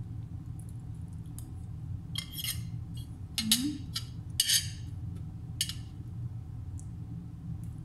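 Fork and knife scraping and clinking on a ceramic plate in about half a dozen short strokes through the middle of the clip, over a steady low hum.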